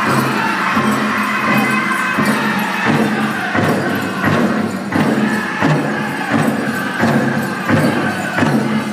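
Powwow drum group singing a chicken dance song in high voices over a steady beat on a large powwow drum, with the jingling of the dancers' bells.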